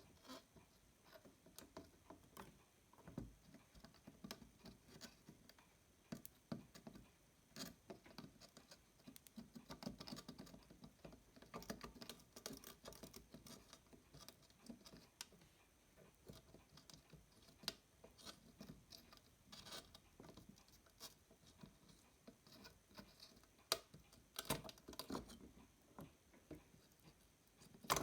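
Near silence with faint, irregular scratches and small clicks of soldering iron and tweezers working the pins of an amplifier IC loose on a circuit board.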